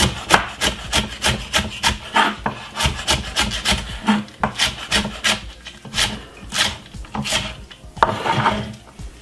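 Kitchen knife chopping spring onions finely on a chopping board, steady strokes about three a second. The chopping stops near the end, followed by a short scrape across the board.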